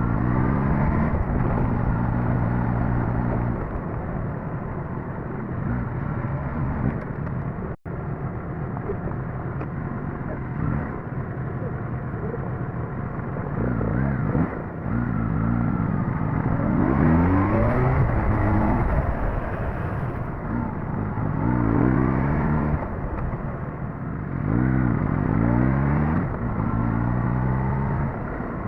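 Suzuki GSX-S1000GT's inline-four engine running on the move, its pitch rising and falling several times as the throttle is opened and eased off. The sound cuts out for an instant about eight seconds in.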